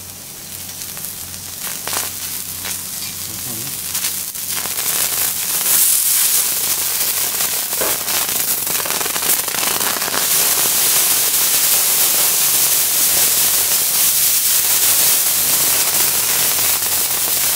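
Food sizzling and crackling on a hot steel teppanyaki griddle. The sizzle builds over the first few seconds, then holds loud and steady with many sharp pops.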